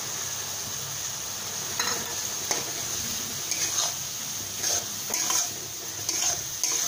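A metal spatula stirring and scraping pointed gourd seeds and pulp with shrimp and onion in a kadai, over a steady sizzle of hot oil. The spatula scrapes the pan every second or so at uneven intervals.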